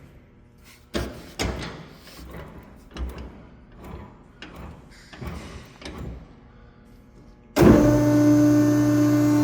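A few scattered metal clunks and knocks, then about seven and a half seconds in the LC-72 cardboard baler's hydraulic pump motor starts and runs with a steady hum, powering the ram back up.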